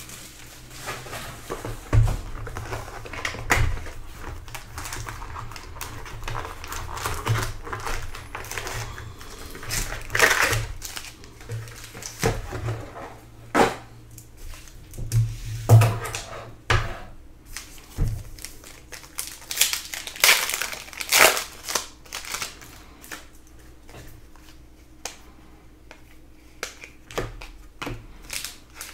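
Wrapping and foil packs of a sealed Panini Prizm basketball hobby box crinkling and tearing as they are opened, mixed with clicking and riffling of trading cards being handled. A few heavier thumps stand out, about two seconds in, near four seconds, around fifteen seconds and near eighteen seconds.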